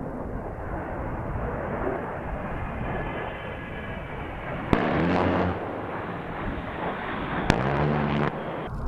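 GAU-8 Avenger 30 mm rotary cannon firing two short bursts, each under a second and about three seconds apart, each a deep buzz that starts abruptly, over a steady rushing noise.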